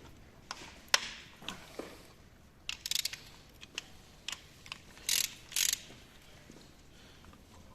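Ratchet wrench clicking in short bursts, with sharp metal clinks and knocks of tools and bolts during engine teardown; two longer ratcheting runs come close together about five seconds in.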